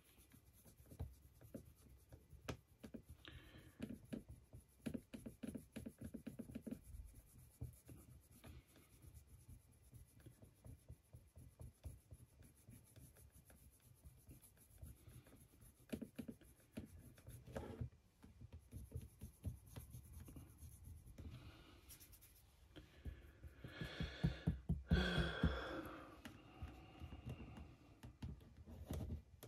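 Quiet handling noise of a paintbrush being worked over a 3D-printed figure: faint scratchy brush strokes, small taps and rubs, and soft bumps from the hands holding the model. About twenty-four seconds in there is a louder rustle lasting a couple of seconds.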